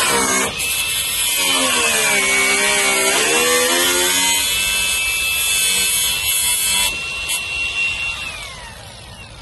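Power tool cutting the steel side panel of a school bus, its motor pitch dipping and recovering under load. About seven seconds in the cutting stops, and the motor runs on briefly before winding down.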